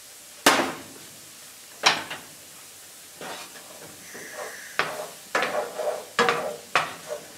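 Cubes of cold butter dropped into a nonstick frying pan, giving two sharp knocks in the first two seconds. Then a wooden spoon knocks and scrapes against the pan about twice a second as the butter is pushed around, over a faint sizzle.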